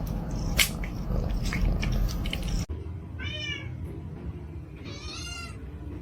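A cat meows twice, two short high calls about a second and a half apart. Before them come a few sharp clicks and knocks over a low hum, ending in an abrupt cut.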